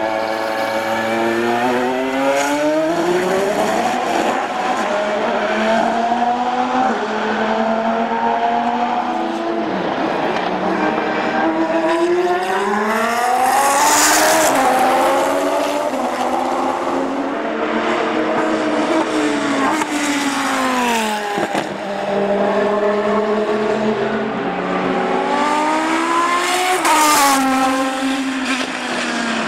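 Pescarolo LMP1's 5.5-litre Judd V10 racing engine on track. It rises in pitch through each gear and drops back at each shift, with falling runs on the downshifts over several passes.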